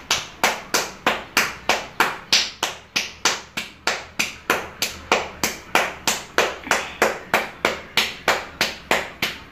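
Hands patting a pearl millet (bajra) dough rotla flat between the palms and fingertips, the traditional hand-shaping of a Gujarati millet flatbread: steady rhythmic slaps, about three a second.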